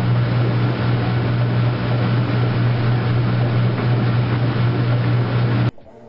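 Washing machine running with a steady low electric hum over a rushing noise, which cuts off abruptly near the end.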